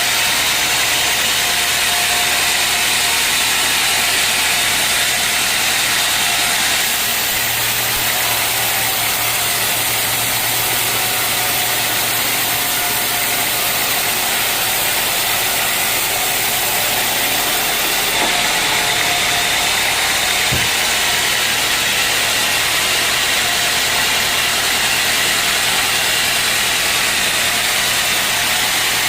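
Sawmill machinery running steadily with a dense, hissing mechanical noise. For about ten seconds in the middle the sound shifts, with an added low hum, and there is a single sharp knock a little after that.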